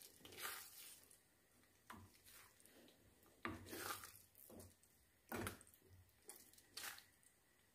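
Faint, irregular squelching and scraping of a wooden spoon stirring a thick, simmering tomato-and-cream spaghetti sauce in a metal frying pan.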